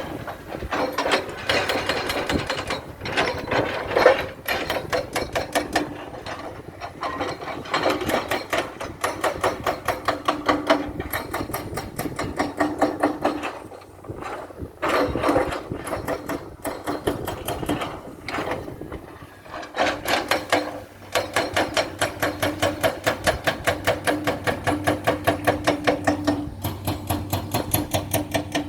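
Excavator's steel tracks clanking in a fast, even rhythm of several knocks a second as the machine travels, over a steady engine hum, stopping briefly twice.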